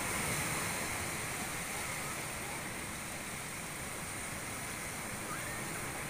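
Sea waves washing in over a rocky shoreline: a steady rush of surf and water among the rocks.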